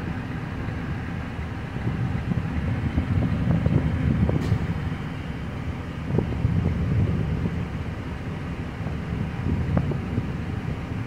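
Low, steady rumble of a rubber-tyred gantry crane working over a container train, mixed with wind buffeting the microphone.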